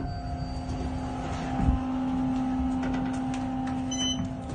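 Otis Series 5 elevator machine's motor starting up and running with a steady hum, with a low thump about one and a half seconds in and a brief high chirp near the end.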